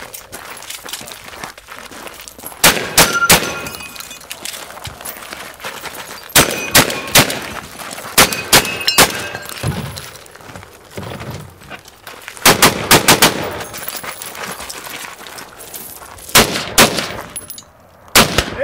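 Gunfire from a competition shooter: about six rapid strings of three to six shots each, every string lasting a second or less, with pauses of one to three seconds between them.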